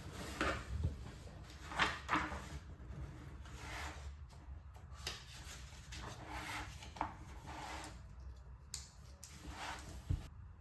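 Small handling sounds: irregular soft rubs, scrapes and light knocks, several a few seconds apart.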